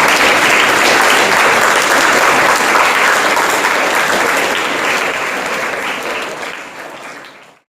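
A large crowd of students applauding, a dense steady clapping that fades over the last couple of seconds and then cuts off abruptly.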